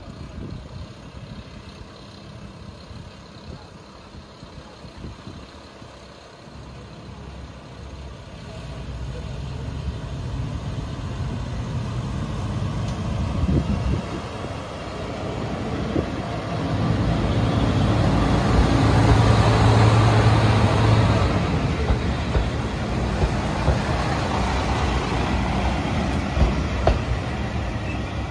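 Two-car diesel railcar (Shimabara Railway KiHa 2550 series) pulling slowly along the platform, its diesel engine running under power with a steady low drone. It grows steadily louder as the railcar draws near and is loudest about two-thirds of the way through as it passes close by.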